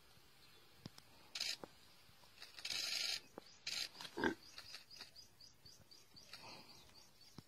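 Animal sounds at a kill, where a spotted hyena is feeding on a live impala. There are several short, rough, noisy bursts, then one short low call about four seconds in, followed by a rapid run of faint clicks.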